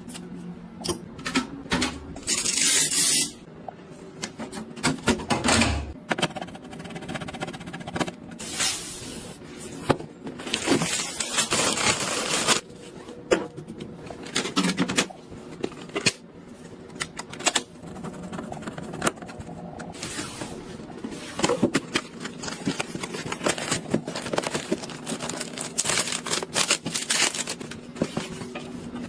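Gaming PC parts being handled and fitted during a build: a string of clicks, taps and scrapes, with a couple of longer bursts of rustling or scraping.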